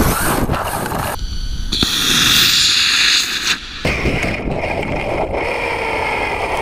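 Loud wind and road rush on a HobbyKing Desert Fox 1:10 scale RC car running fast over asphalt, picked up by the car's onboard camera, the noise changing abruptly a few times.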